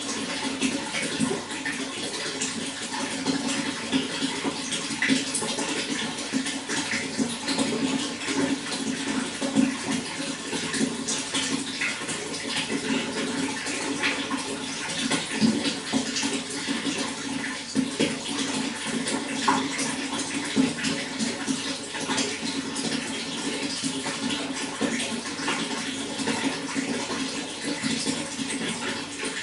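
Water running and splashing steadily, a continuous dense patter of small splashes.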